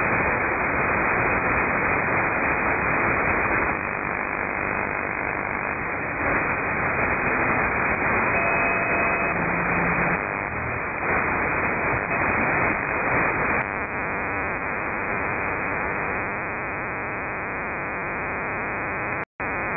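Shortwave radio receiver hiss and static through a narrow receive filter, the noise shifting in level and texture every few seconds as the receiver is retuned across the HF band. A faint steady whistle of a carrier comes in briefly about eight seconds in, and the audio drops out for a moment just before the end.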